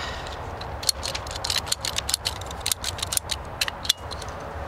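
Hand-squeezed plastic pipe cutter clicking as it is worked through yellow polyethylene gas pipe: a quick, irregular run of sharp clicks from about a second in, ending just before four seconds when the cut is through.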